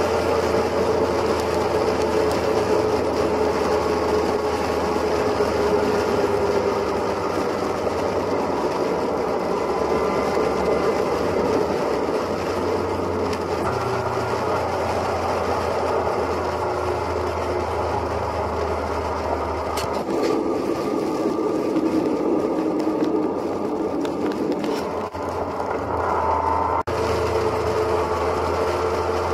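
Motorcycle engine running steadily at highway cruising speed, mixed with wind and road noise heard from the rider's seat behind the windshield.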